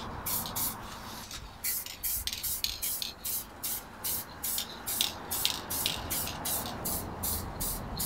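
Aerosol can of heat-resistant caliper paint hissing out in short, rapid bursts, about three a second, as the brake caliper is spray-painted.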